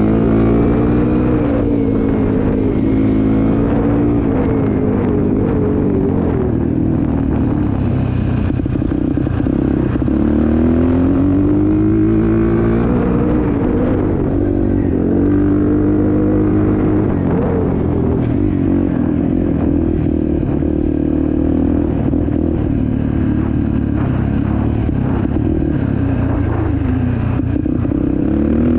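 An off-road vehicle's engine being ridden hard, its revs climbing and dropping again and again with the throttle over a steady low rumble.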